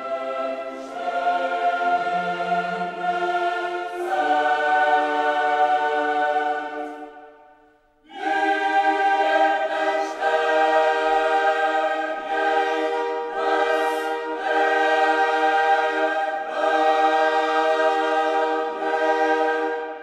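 Background music: choral singing in long held chords that change every few seconds. It fades out about seven seconds in and starts again a second later.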